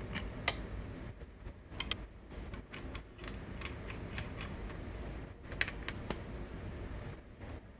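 Irregular light metallic clicks and taps as a crankshaft puller/installer tool is handled and turned by hand against a motorcycle engine crankcase, over a low steady hum. A few clicks stand out, about half a second in and again at about two, five and a half and six seconds.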